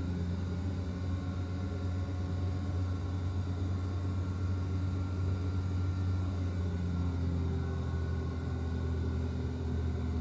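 A film soundtrack played through four Klipsch CDT-5800-C II in-ceiling Dolby Atmos speakers: a steady, deep rumble with faint sustained tones above it.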